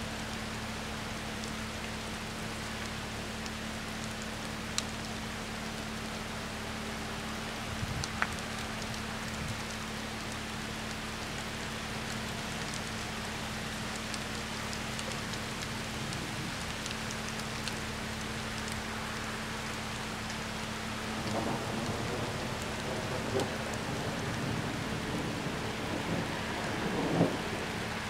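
Steady rain falling on wet pavement, with a steady low hum underneath. About three-quarters of the way through, a low rumble builds and grows louder toward the end.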